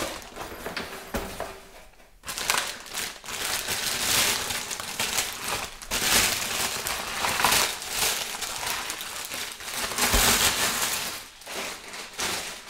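Clear plastic bag crinkling and rustling as a tripod is pulled out of its wrapping, in irregular stretches from about two seconds in, dying down near the end.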